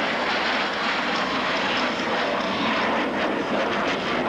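Steady jet engine noise from a formation of military jets flying a display pass.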